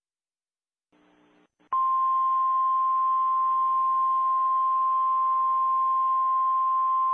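A single steady electronic alert tone, pitched just above 1 kHz, comes in sharply about two seconds in and holds level without a break, after a short silence and a moment of faint hiss.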